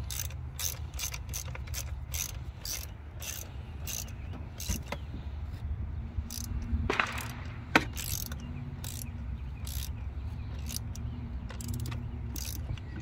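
Ratchet wrench clicking in short irregular runs while bolts are tightened down during a coil pack install, with one sharper clack about eight seconds in.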